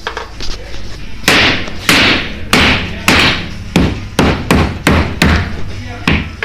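Hammer blows on wood framing, about ten sharp strikes: at first roughly one every half second, then coming faster in the middle, with a last single strike near the end.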